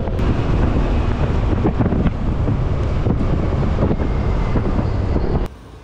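Wind buffeting the microphone of a motorcycle rider's helmet camera at riding speed, a steady rush heavy in the lows with the vehicle's running noise underneath. It cuts off abruptly near the end.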